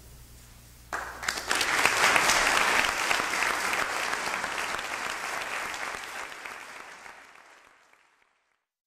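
Audience applauding, breaking out suddenly about a second in, then fading away and cutting to silence near the end.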